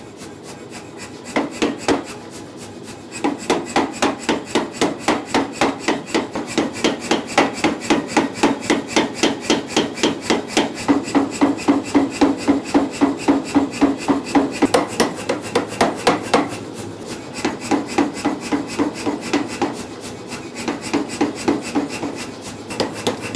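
Mechanical power hammer forging hot steel for a stake anvil, striking in a fast, even rhythm of about four to five blows a second. There is a short burst about a second in, a brief pause, then a long steady run that eases about two-thirds of the way through before the blows resume.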